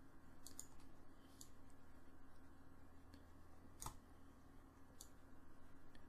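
A few faint computer mouse clicks, about seven spread unevenly, the strongest nearly four seconds in, over a low steady hum.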